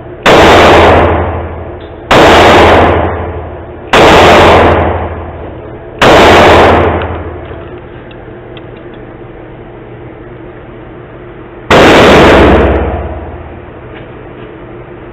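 Sig Sauer P320 pistol fired five times: four shots about two seconds apart, then a pause of several seconds before a fifth. Each shot dies away over about a second.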